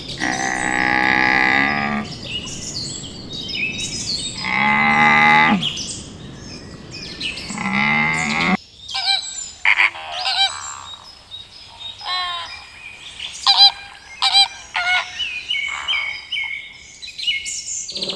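Three drawn-out, pitched animal calls, then after an abrupt cut a busy run of quick, sweeping bird chirps and trills.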